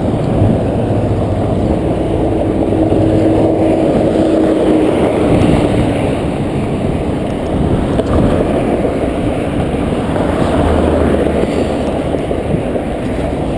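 Steady low rumble of wind buffeting the camera microphone and tyre noise as a mountain bike rolls along a concrete road, with a faint steady hum about two to six seconds in.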